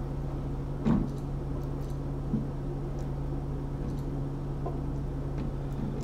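A plastic spatula knocking and scraping inside a metal can of malt extract, with one sharper knock about a second in and a few faint ticks after it, over a steady low hum.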